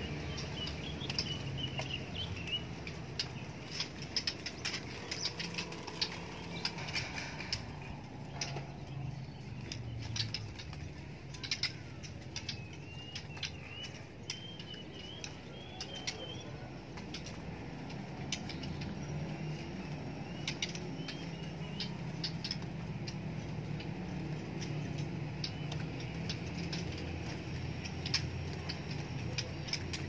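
Caged white-rumped shamas (murai batu) giving short chirping calls, with frequent sharp clicks and wing flutters from birds moving in their cages, over a steady low background hum.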